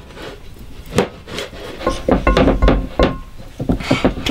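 Hands rubbing butter around the insides of glass loaf pans on a wooden table: an irregular scuffing with short knocks as the dishes shift, and a low rumble about two seconds in.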